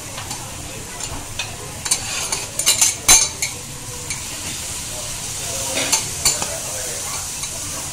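Scallops and beef sizzling on a hot flat griddle. A metal spatula scrapes and clacks against the plate in a cluster of strokes between about two and three and a half seconds in, the loudest clack about three seconds in, and twice more near the end.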